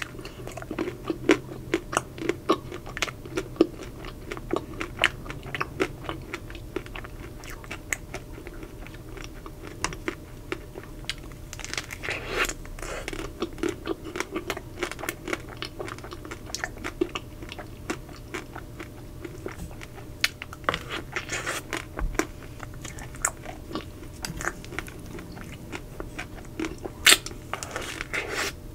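Biting and chewing a Magnum Double Sea Salt Caramel ice cream bar: its chocolate shell cracking and crunching in many quick, irregular snaps, with chewing between them and one loudest crack near the end.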